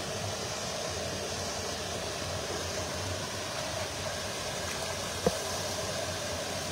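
Steady rushing background noise with a faint hum, and one short click about five seconds in.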